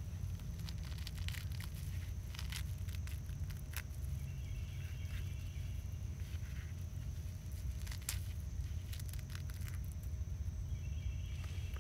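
Gloved hands rustling soil and handling small nursery pots while transplanting seedlings, heard as scattered light crackles and clicks over a steady low rumble.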